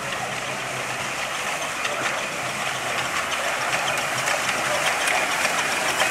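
Miniature live-steam locomotive hauling a train of riders and running past. It gets slowly louder as it nears, with a steady hiss and scattered light clicks.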